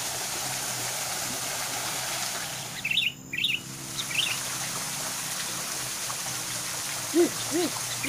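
Thin waterfall splashing steadily into a pool, with a few short high bird chirps about three seconds in and two short low hooting calls near the end.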